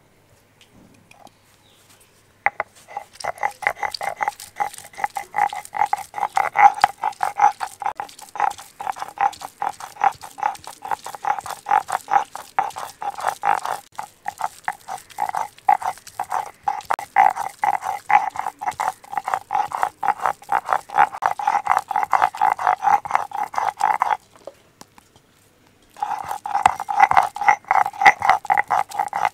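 Electric mixer grinder running, grinding minced chicken into a fine paste, with a fast rattling pulse over a steady motor tone. It starts about two seconds in, is switched off about 24 seconds in, and runs again for a few seconds near the end.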